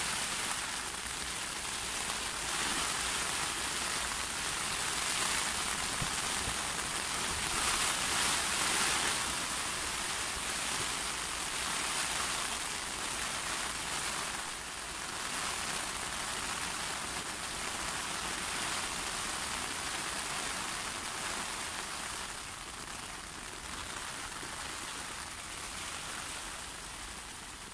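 A really heavy rain shower, a steady hiss of rain falling on the lake surface and the grass, easing slightly near the end.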